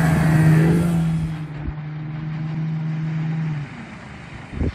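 1984 Johnson 25 HP two-cylinder two-stroke outboard running at a steady pitch, fading somewhat after the first second, then cutting off suddenly about three and a half seconds in.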